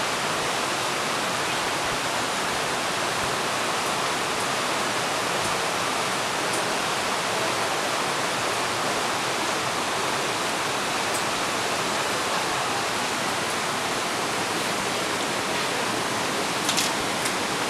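Steady rushing of a shallow river flowing through a narrow rock gorge, with a few faint clicks near the end.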